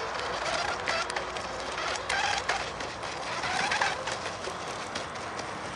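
Sigma Evo radio-controlled racing boat running flat out across the water: a rough, buzzing motor and hull noise that surges louder three times.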